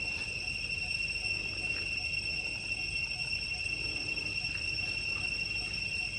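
Insects droning steadily, one continuous high-pitched buzz that does not break or change, over a faint low rumble.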